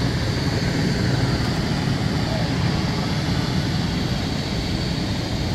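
Steady low rumble of engine noise across an airfield, with a faint high whine above it.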